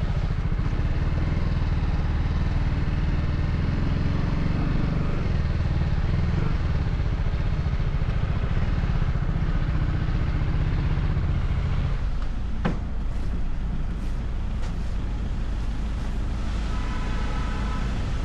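TVS Apache RR310's single-cylinder engine running through its stock exhaust, steady for about twelve seconds and then easing off. A sharp click follows soon after, and a few fainter clicks after that.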